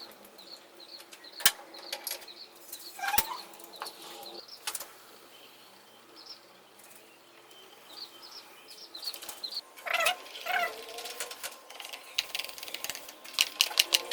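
Small birds chirping and fluttering, with a few sharp metallic clicks of tools. A fast run of ticks starts near the end.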